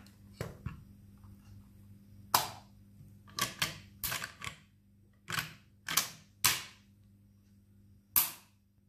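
Steel parts of an AK-74 rifle's action being worked by hand: a string of about a dozen sharp metallic clicks and clacks, unevenly spaced. Three of them are louder, with a short ring.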